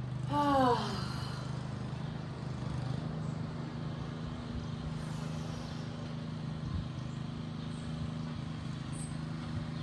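Ocean surf washing steadily, over a steady low hum. About half a second in, a short call drops in pitch.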